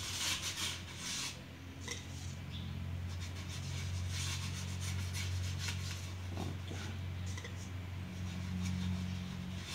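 A hand rubbing salt into the wet surface of a wooden board: a scratchy scrubbing in repeated strokes, strongest in the first second and again around four seconds in. A steady low hum runs underneath.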